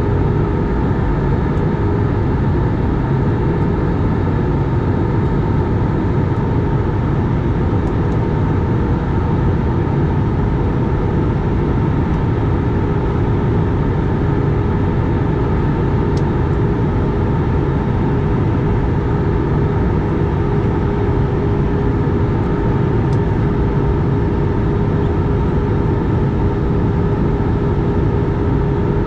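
Steady engine and rushing-air noise inside a jet airliner's cabin at cruise, beside a wing-mounted turbofan engine, with a constant hum running through it.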